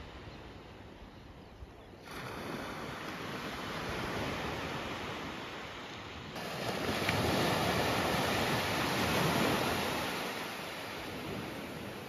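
Small waves washing onto a sandy beach, a steady rush of surf that steps up sharply about two seconds in and again about six seconds in, loudest near the middle before easing off.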